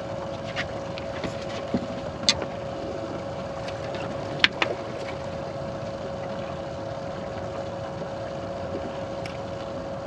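Steady hum of an electric trolling motor under wind and water noise on a bass boat. Over it come a few sharp knocks and slaps in the first half, the loudest about halfway through, as a freshly landed smallmouth bass is brought aboard and handled.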